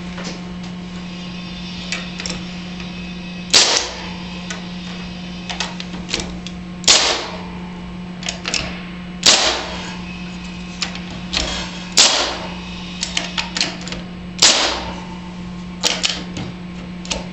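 Nail gun firing ballistic nail-screws through fastening clips into wood: six sharp shots about every two to three seconds, with lighter clicks and knocks between them.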